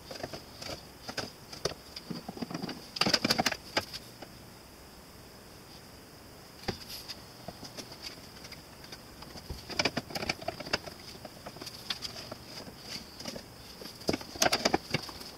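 End-grain hardwood strips of maple, walnut and padauk clacking and knocking as they are handled and set down on a clamp rack for gluing. The knocks come in three short clusters, with single clicks between them, over a steady high whine.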